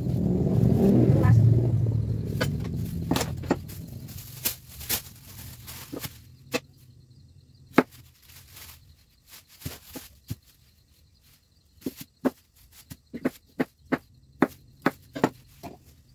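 Kitchen knife slicing a block of tofu, its blade tapping sharply on the wooden counter, sparse at first and then about three taps a second near the end. A low rumbling noise fills the first couple of seconds.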